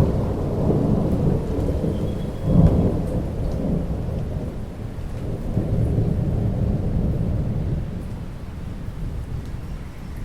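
Thunder rumbling over steady rainfall. The rumble swells loudest about two and a half seconds in, then rolls on and fades away near the end.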